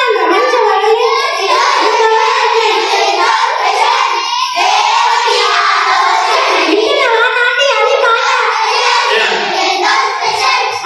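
A high-pitched, child-like voice singing a song without a break.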